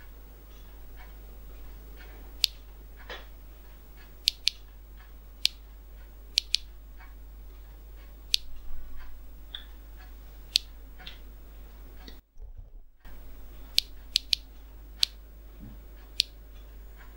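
DP-66M Geiger counter clicking at random as it counts background radiation: about a dozen sharp single clicks with uneven gaps, some coming in quick pairs, over a steady low hum.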